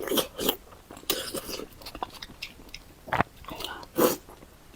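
Close-miked eating: a person chewing with wet mouth sounds and irregular crunches, two louder ones about three and four seconds in.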